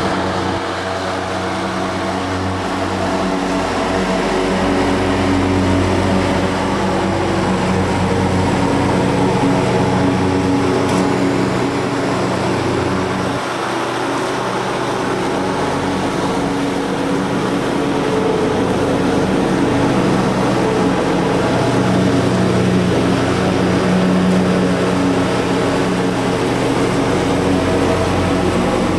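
Leaf vacuum running steadily, its motor holding a near-constant speed with small wavers.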